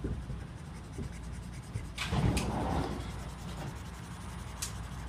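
Marker scratching and rubbing across sketchbook paper in quick hatching strokes, louder about two seconds in, over the steady low rumble of a moving subway car.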